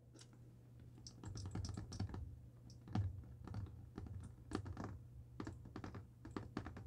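Faint typing on a computer keyboard: an irregular run of light key clicks, starting about a second in, over a low steady hum.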